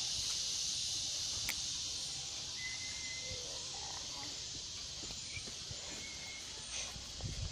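Steady high-pitched drone of an insect chorus in trees, easing slightly over the seconds. A couple of faint short whistles sound over it, one about three seconds in and another near six seconds.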